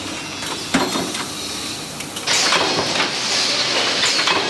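Paint brush ferrule making machinery running: steady mechanical noise with a single sharp clunk about a second in. About halfway through it turns into a louder steady hiss with a few short high chirps.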